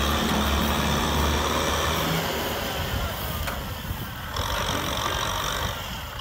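Kubota M6040SU tractor's four-cylinder diesel engine running under heavy load as the tractor struggles through deep mud pulling a loaded rice trailer. The engine drone is strongest in the first two seconds, then eases off.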